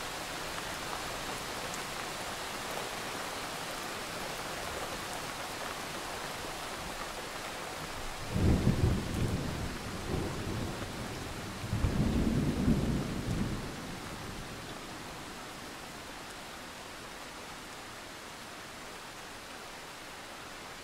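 Steady hiss like falling rain, with two loud low rumbles about eight and twelve seconds in, each lasting a second or two.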